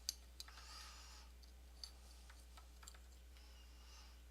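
A few faint, sharp clicks and a brief soft rub of something being handled, over a low steady electrical hum.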